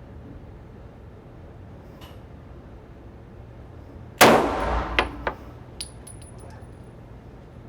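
A single gunshot with a short reverberant ring, followed by smaller sharp clicks and faint high tinkling ticks, like a spent brass casing clattering and ringing as it lands.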